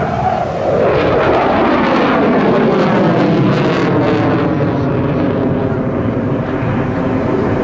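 Dassault Rafale fighter's twin Snecma M88 turbofans in afterburner: a loud jet roar whose pitch falls over the first three seconds as the jet passes and draws away, with a crackle about three to four seconds in.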